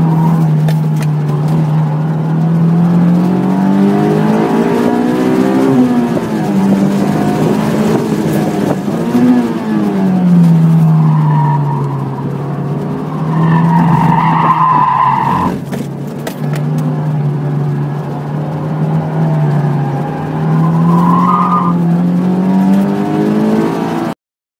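Honda S2000's four-cylinder engine running hard in second gear, its pitch rising and falling as the car accelerates and lifts between corners. Tires squeal in short spells through the corners, longest about halfway through. Heard from inside the cabin; the sound cuts off suddenly near the end.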